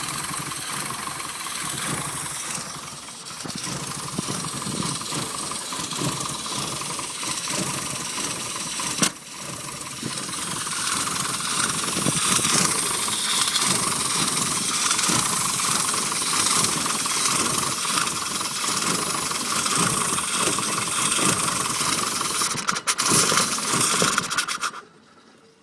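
Rover Mini SPi's 1275 cc A-series four-cylinder engine running with an uneven, sputtering idle under a steady hiss, caused by a failing crank sensor. The sound cuts off suddenly about a second before the end.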